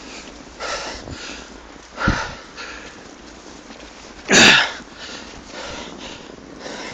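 Heavy, rhythmic breathing of a cyclist pedalling hard behind a pulling dog, in short breathy puffs, with one strong exhale about four and a half seconds in and a low thump about two seconds in.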